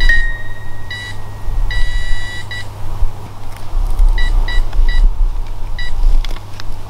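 Electronic toy ball beeping: short beeps at a single high pitch, some alone and some in quick runs of three, with two longer held tones, set off when the ball is moved. A steady low hum lies underneath.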